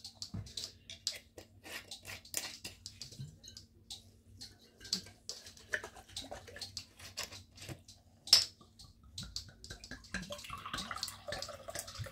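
Small irregular clicks and taps of a glass bottle being handled, with one sharper click about eight seconds in. Near the end, liquid starts pouring from a glass bottle into a drinking glass.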